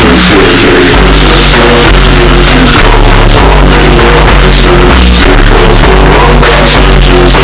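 Loud, heavily compressed music with a driving bass line and a dense, distorted top, in the manner of rock or electronic music.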